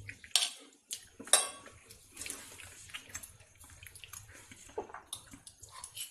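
Steel spoon and fork clinking and scraping against a plate while tossing a heap of noodles. Two sharp clinks come in the first second and a half, followed by many lighter clicks and the soft rustle of the noodles being stirred.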